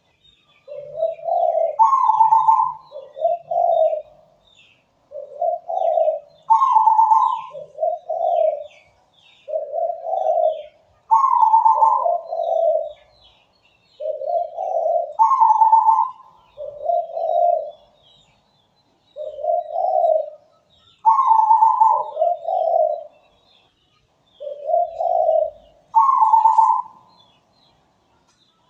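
Local Indonesian zebra dove (perkutut) singing its cooing song: a low coo, a higher ringing note and another low coo, repeated as a phrase about every four to five seconds. Faint high chirping of small birds behind it.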